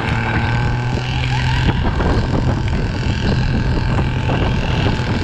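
A sled scraping and bumping over snow as a utility side-by-side tows it on a rope, with wind rushing on the microphone and the vehicle's engine running ahead.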